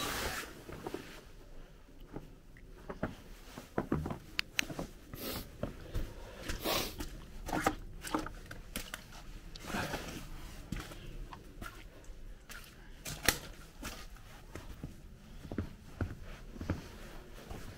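Footsteps crunching over snow and rubble, an irregular string of short crunches and knocks.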